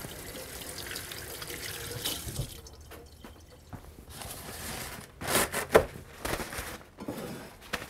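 Kitchen sink tap running as hands are rinsed, stopping about two and a half seconds in. A few louder rustling rubs follow about five seconds in.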